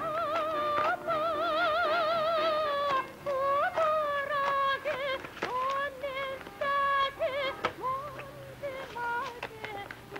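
Background music: a single high, voice-like melody with wide vibrato and swooping slides between notes.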